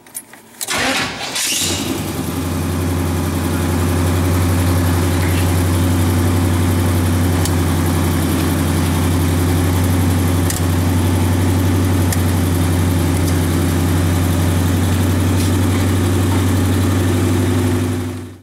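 C3 Corvette V8 being started: a short burst of cranking about a second in, then it catches and idles steadily.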